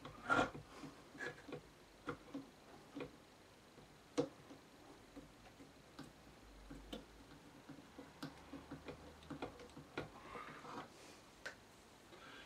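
Irregular small clicks and light knocks of a threaded cord ring being worked by hand into a Bush SRP31C radio, with a louder knock about four seconds in and some rustling near the end.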